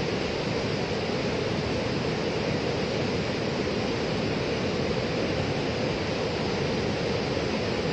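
Muddy floodwater from a breached dam surging past in a torrent: a steady, unbroken rush of churning water.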